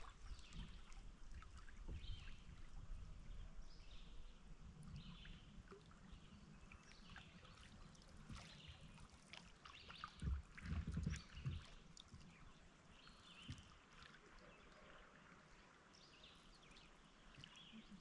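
Quiet river ambience heard from a canoe: faint water lapping and trickling, with many short distant bird chirps and a few low knocks about ten seconds in.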